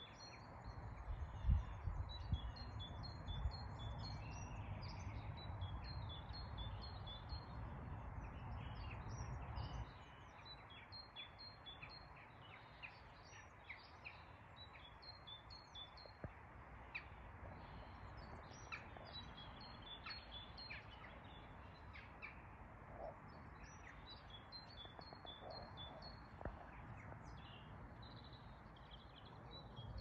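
Wild garden songbirds singing, with phrases of quick, high repeated notes every few seconds over scattered chirps. A low rumble sits under the song for the first ten seconds and drops away about ten seconds in.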